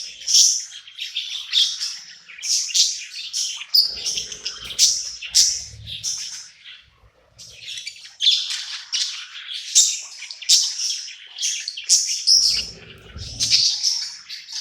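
Budgerigar chirping and warbling in a rapid, continuous stream of high chirps, with a brief lull about halfway through. Two stretches of low rumbling noise sit under the chirps.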